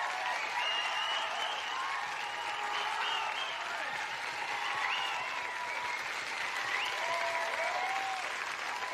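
A young audience applauding and cheering: steady clapping with voices calling out over it.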